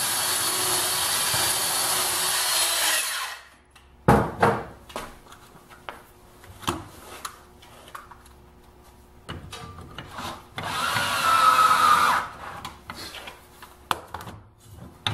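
Electric drill boring the hole for a pedal's rotation-limiting screw. It stops about three seconds in, followed by scattered knocks and handling clicks, then a second short burst of drilling with a rising whine at about ten and a half seconds.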